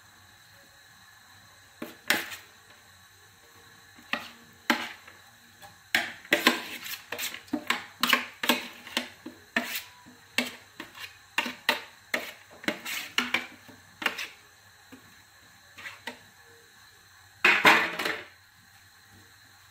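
A plastic spatula knocking and scraping against a metal tray and a pan as grated carrot and zucchini are pushed into the pan: a string of short clatters and taps, thickest in the middle. A louder clatter comes near the end.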